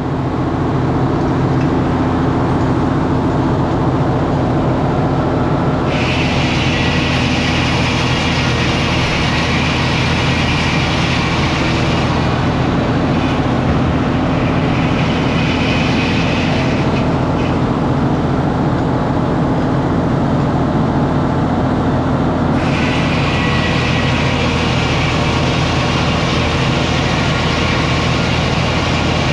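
Sawmill running: a steady engine drone underneath, with a higher hissing whine of the saw working through timber that comes in three stretches, the middle one short and the last one longest.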